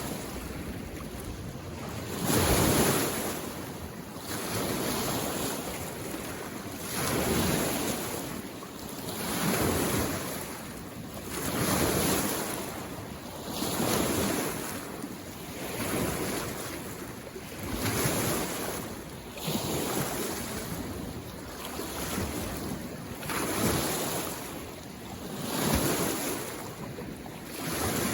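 Small lake waves washing in on the shore, one surge of water about every two seconds, rising and falling evenly.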